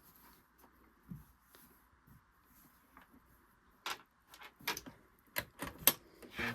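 Light handling clicks and knocks on a Singer Genie sewing machine: a few faint taps, then a run of about eight sharp clicks from about four seconds in.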